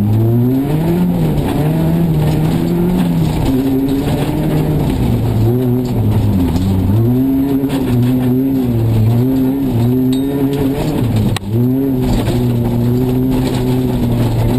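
Peugeot 206 RC Group A rally car's four-cylinder engine at race pace, heard from inside the cabin, its revs rising and falling repeatedly through gear changes and lifts. The sound cuts out sharply for an instant about eleven seconds in.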